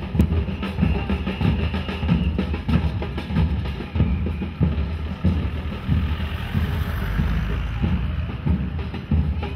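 Rhythmic drumming with a deep bass drum keeping a steady beat.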